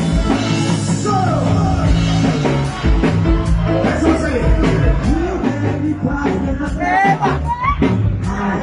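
Live band playing rock music, with a melody line sliding up and down in pitch near the end.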